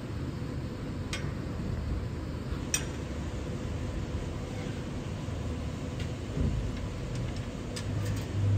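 A few sharp, separate metallic clicks from a socket wrench working the oil pan drain plug loose, over a steady low rumble of shop background noise.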